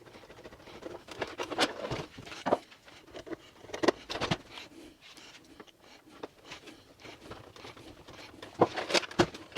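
Scattered clicks and knocks of parts of a Pentair Kreepy Krauly Racer pool cleaner being handled and fitted back together, with a screw being put back in.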